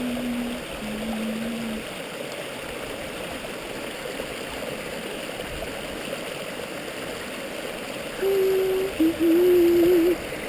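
Mountain stream running steadily over rocks, an even rush of water. A few long steady notes break over it, two falling ones near the start and two near the end, the loudest moments.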